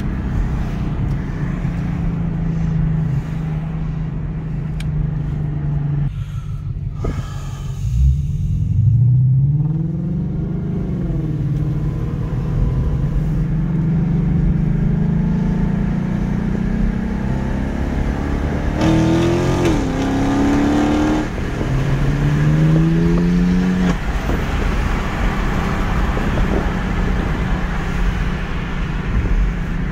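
Lexus IS F's V8 exhaust heard from a car following it, running at a steady drone over road and wind noise. The revs rise about eight seconds in, then climb again through a couple of upshifts about two-thirds of the way through.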